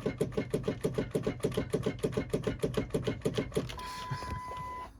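Starter solenoid on a Ford 7.3L Power Stroke diesel chattering: a rapid run of clicks, about eight a second, with the engine not cranking. This is the sign of a bad starter solenoid, which passes almost no voltage to the starter. The clicking stops a little before four seconds in, and a steady high-pitched beep follows for about a second.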